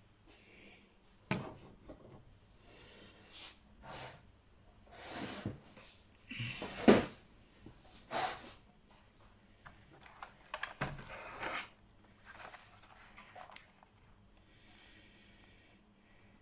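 Cardboard box of a dotting-painting starter kit being handled and opened: a series of short rustles, scrapes and knocks, the loudest about seven seconds in.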